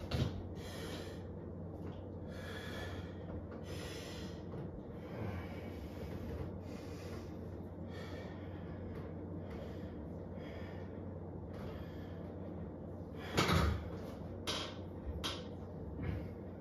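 A weightlifter's heavy breathing through a set of one-arm dumbbell preacher curls, a breath roughly every second or so. There is a louder burst near the end, followed by a few short knocks.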